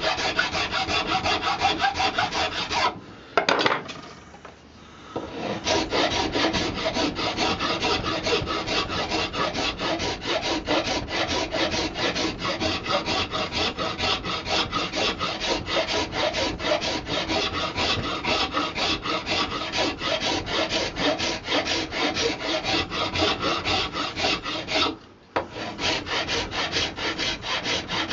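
Flat hand file rasping across a buffalo horn handle in rapid back-and-forth strokes, shaping the horn down to fit the stick. The filing pauses about three seconds in and stops briefly near the end.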